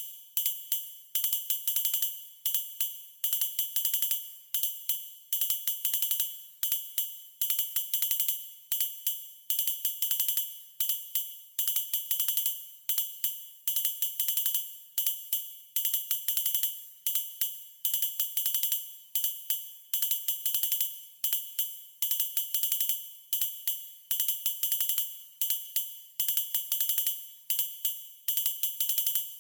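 News-report intro sound effect: fast, bright ticking percussion in a steady repeating rhythm over a low pulsing tone, looping throughout.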